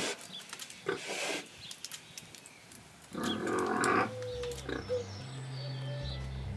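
Pigs grunting, with a few short grunts and then one longer, louder call about three seconds in. Low, steady music notes begin just after it.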